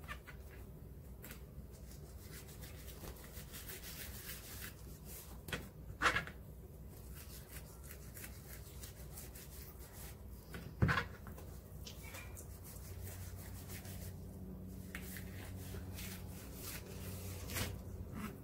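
Faint scraping and rubbing of a kitchen knife drawn through a raw fish fillet on a plastic cutting board, with two sharper knocks of the blade, about six and eleven seconds in. A low steady hum joins in the second half.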